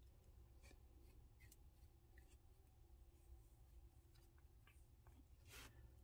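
Faint scratchy strokes of a comb drawn through a puppy's fur, with a slightly louder stroke near the end; otherwise near silence.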